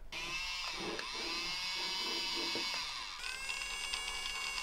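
Small electric motor of a remote-controlled toy claw crane whining as it runs, its pitch bending up and down, then holding a steadier, higher whine from about three seconds in.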